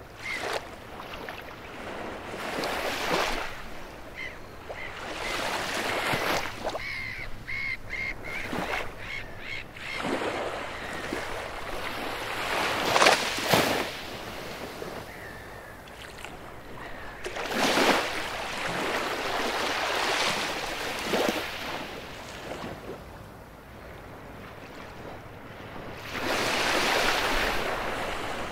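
Baltic Sea waves washing onto a beach, the surf swelling and fading every few seconds. About eight seconds in, a bird gives a quick run of short high calls over the surf.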